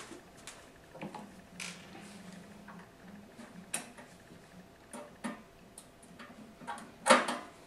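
Screwdriver turning screws out of the back of a computer case: scattered small clicks and ticks, with a louder scrape near the end.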